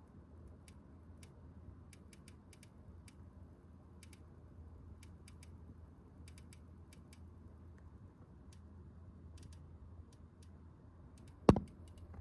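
Corsair RM750e computer power supply making faint, irregular clicking noises, a scatter of small sharp ticks over a low steady hum. A single much louder thump comes near the end.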